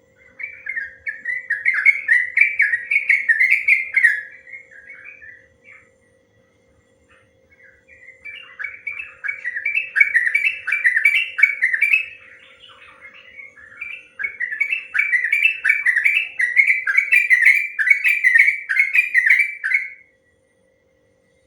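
Yellow-vented bulbul (trucukan) singing its long rapid warbling song ('ropel panjang'). It sings in three extended runs of quick chattering phrases separated by short pauses, then stops about a second before the end. A faint steady hum lies underneath.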